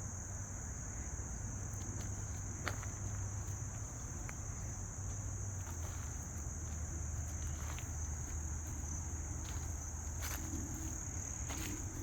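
Insects chirping in a steady, unbroken high-pitched chorus over a low steady hum, with a few scattered soft clicks such as footsteps.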